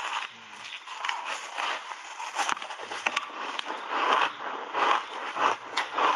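Close-up crunching and chewing of refrozen ice chunks coated in powder, with a few sharp cracks as the ice breaks between the teeth.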